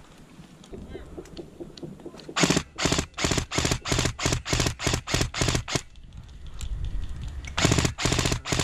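A regular series of sharp thuds, about three a second, in two runs separated by a pause of roughly two seconds.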